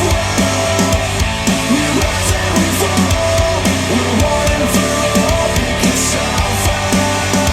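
Instrumental rock music with electric guitar and drum kit, played through Monitor Audio Bronze 100 bookshelf speakers driven by a Yamaha A-S301 integrated amplifier.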